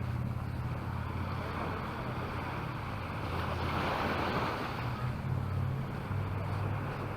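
Sea waves washing onto the beach, the surf noise swelling and ebbing, with wind on the microphone adding a low rumble.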